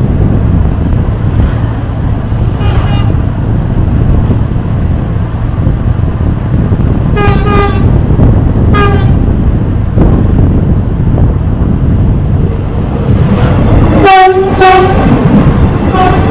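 Short single-tone vehicle horn beeps: a double toot about seven seconds in, a single one a second later, and a louder double toot near the end. A steady rumble of wind and road noise from the moving vehicle runs underneath.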